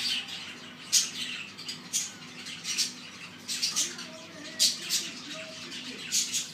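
Indian ringneck parrot giving a string of short, raspy squawks, about one every half second to a second.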